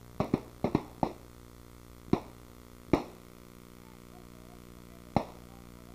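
Scattered rifle shots, blanks fired for a staged battle scene: a quick volley of five in the first second, then single shots about a second apart and one more near the end. A steady low hum runs underneath.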